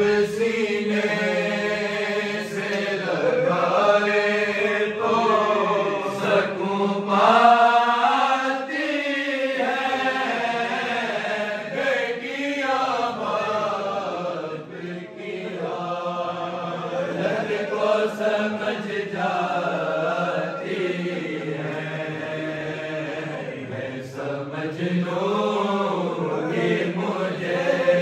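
Men's voices chanting an Urdu noha, a Shia mourning elegy, in long drawn-out sung lines that rise and fall, with no instruments.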